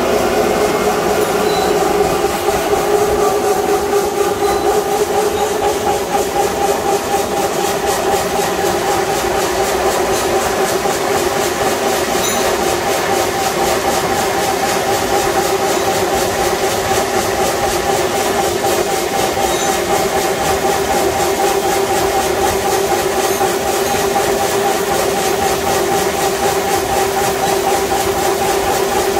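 Eight-spindle drill machine running, its drills cutting bolt holes through a metal flange under coolant, a steady loud grinding with a constant two-note whine.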